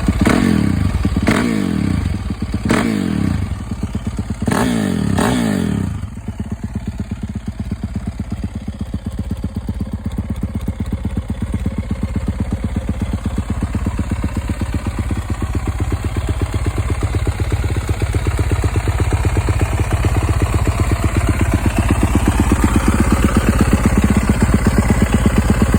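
A 2019 Yamaha YZ450F's single-cylinder four-stroke engine is blipped through several quick revs in the first six seconds, then settles into a steady idle. The engine is still cold, not yet hot.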